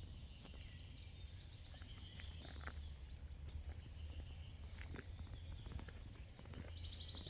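Small birds singing in woodland: quick repeated chirps and trills, with a fresh trill near the end. Under them runs a steady low rumble, with scattered light clicks.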